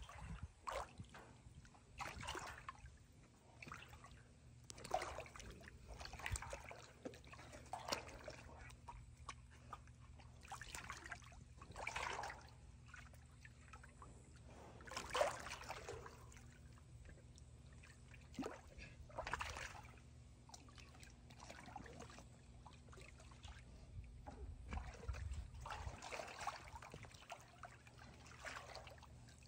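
Pool water splashing and sloshing as a black big cat wades and paws at floating objects, in irregular splashes every second or two, the loudest about halfway through.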